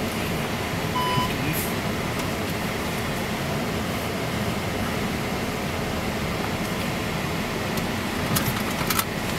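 Steady road and engine noise of a moving car, heard inside its cabin. A short electronic beep sounds about a second in, and a few sharp clicks come near the end.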